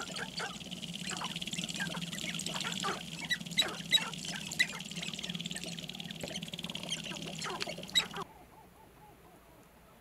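Sharp-tailed grouse calling on a lek: a busy run of many short clucks and cackles from several birds over a steady background chorus. The calling stops abruptly about eight seconds in, leaving only faint sound.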